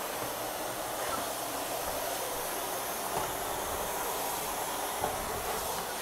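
Miele canister vacuum cleaner running, its floor head being pushed over a wooden floor: a steady, even rushing hiss of suction.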